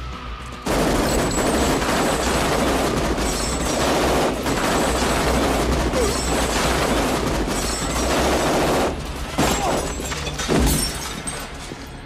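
Movie sound effects of a long burst of automatic gunfire mixed with shattering glass, starting about a second in and going on for about eight seconds, then a few separate loud impacts near the end.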